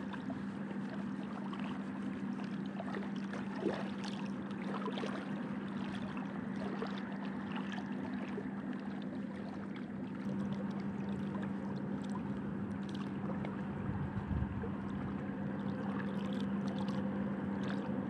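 Steady outdoor river ambience: a constant hiss of water and wind under an unbroken low hum, with a few faint clicks scattered through it.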